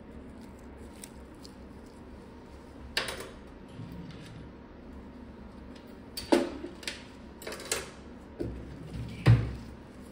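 Scattered sharp clicks and knocks of metal podiatry instruments being handled as the scalpel is put aside and nail nippers taken up, over a low steady hiss. One comes about three seconds in, a cluster follows in the second half, and the loudest is near the end.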